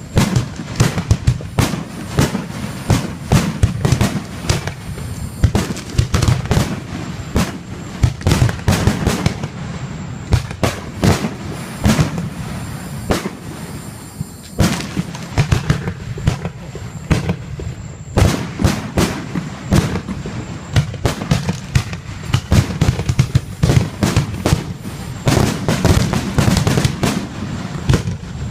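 Fireworks display going off in quick, near-continuous succession: many sharp bangs and crackles a second over a deep, steady booming.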